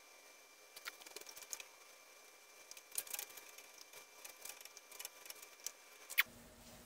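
Faint, scattered light clicks and taps as a plastic cup of mixed epoxy and a brush are handled and carried, with a few footsteps.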